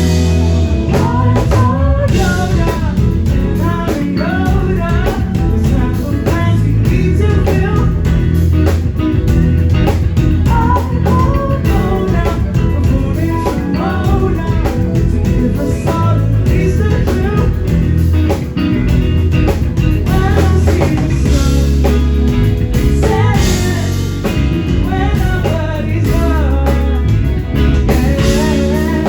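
Live rock band playing with electric guitar, bass and drum kit, and a singer's voice over a heavy steady beat.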